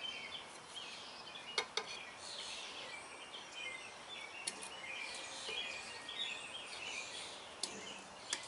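Small birds chirping steadily in the background, with a few sharp metallic clicks of a wrench and lock nut being worked on a brake chamber's threaded push rod.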